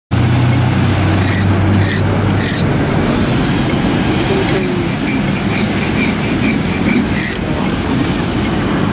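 Metal rasping on a knife blade as it is sharpened by hand, with a few separate scraping strokes, then a quick run of about a dozen strokes at about four a second. Steady traffic noise runs underneath.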